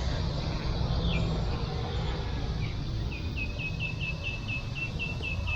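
A bird calling a quick, even series of short high chirps, about four a second, starting about halfway through, after two single chirps earlier. Under it runs a steady low rumble of noise.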